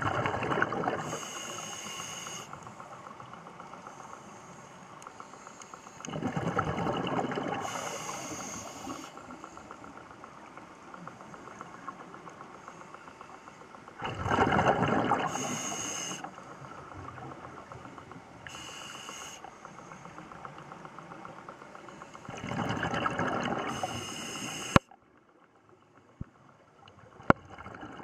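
Scuba diver breathing through a regulator underwater: a rush of exhaled bubbles about every seven or eight seconds, each paired with the hiss of an inhalation. Near the end the sound drops away almost to nothing, broken by a few sharp clicks.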